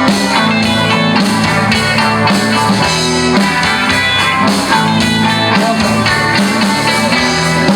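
Rock band playing an instrumental passage: electric guitar over bass and a drum kit, with no singing.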